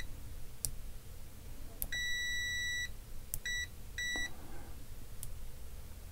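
Venlab VM-600A multimeter's continuity beeper sounding in short high-pitched beeps as the test probes make and break contact: one beep of about a second roughly two seconds in, then two short beeps, with small clicks of the probe tips between. The beeper is slow to respond, not instant.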